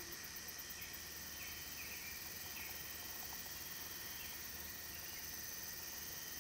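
Steady chorus of crickets and other insects in a summer field, with a few faint short chirps in the first few seconds.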